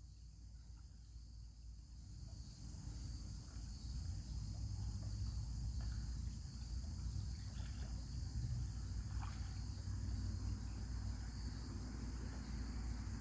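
Steady high-pitched insect chorus of crickets or similar insects, over a low rumble that grows louder during the first few seconds.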